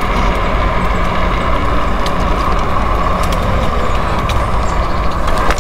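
A small battery-powered ride-on vehicle running along rough, cracked pavement: heavy wind and tyre rumble, a steady high whine from the electric drive, and light ticks of grit under the tyres.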